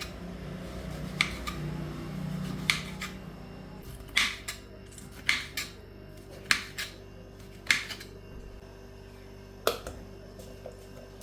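A series of sharp clinks and knocks of kitchen dishes or utensils being handled, about eight in all, some in quick pairs, over a faint steady hum.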